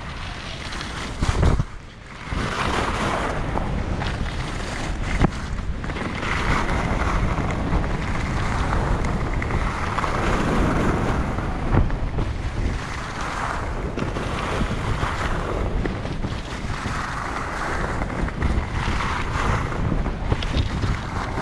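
Wind rushing over the microphone of a skier's body-mounted camera, over the skis' edges scraping across hard-packed piste snow. The scraping swells with each turn, about every one to two seconds.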